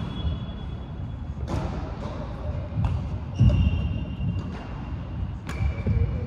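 Badminton rally: a few sharp smacks of rackets hitting the shuttlecock, over low thumps of footsteps on the court.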